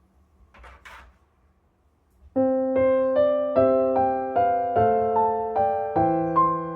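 Background piano music that begins about two seconds in, with a steady melody of evenly paced notes, about two or three a second. Before it, two faint brief rustling sounds.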